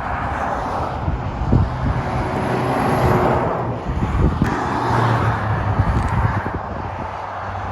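Motorway traffic passing at speed: tyre noise on the road surface with a heavy engine's low drone, the level swelling and easing as vehicles go by.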